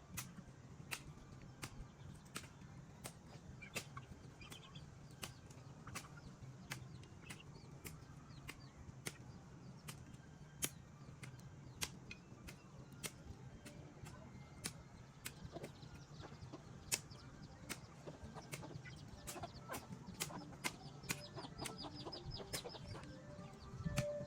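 Chickens clucking with small birds chirping, over sharp, irregular knocks or clicks about once or twice a second.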